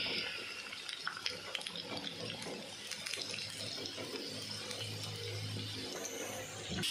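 Chicken strips deep-frying in hot oil in a kadhai: a steady sizzle scattered with small crackles and pops.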